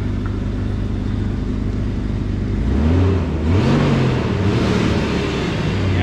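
Jeep Grand Cherokee 4.0 inline-six idling steadily, running again after a no-start. Past the middle, a louder rising-and-falling engine sound with a hiss swells for about two seconds, then settles back to idle.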